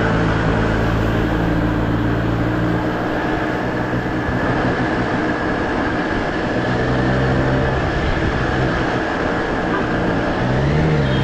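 Triumph Street Triple R's three-cylinder engine running on the move, over a steady rush of wind noise. The engine note drops back about three seconds in, picks up again partway through, and rises briefly in pitch near the end.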